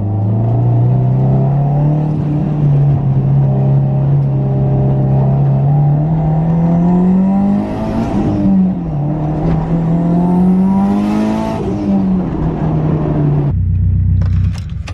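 Straight-piped, big-turbo 2002 Subaru WRX's turbocharged flat-four engine under load. The revs climb steadily for about seven seconds, fall back, and climb again. They then settle and drop to a lower steady note near the end.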